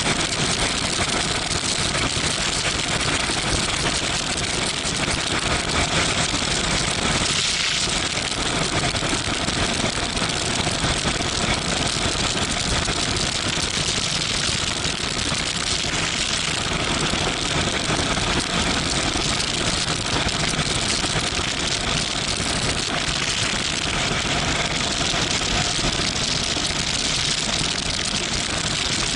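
Steady rush of wind over a motorcycle-mounted camera, mixed with the Yamaha MT-07 Tracer's parallel-twin engine running at cruising speed.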